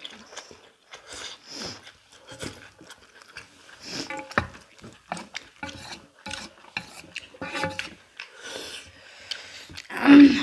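Two people eating noodles with wooden chopsticks from metal plates: chopsticks scraping and tapping against the plates in quick, irregular clicks, with noodles being slurped. A louder burst about ten seconds in.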